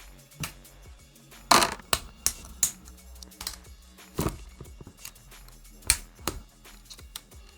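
Background music with several sharp, irregular clicks and clacks over it, the loudest about one and a half, four and six seconds in.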